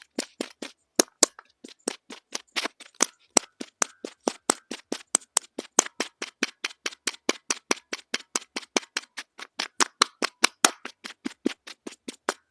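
Quick, even tapping on a small hard object close to the microphone, about four to five sharp taps a second, kept up steadily.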